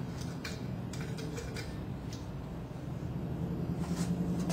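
A propane tree being screwed by hand onto a propane tank's valve: a few faint metal clicks over a steady low hum.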